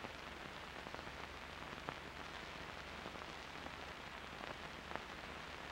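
Faint hiss and crackle of an old film soundtrack, with a steady low hum and a few faint clicks.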